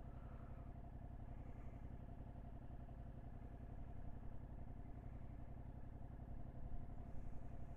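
Yamaha MT-07's parallel-twin engine idling steadily in neutral, a low even pulsing hum, left running to warm up on a cold day.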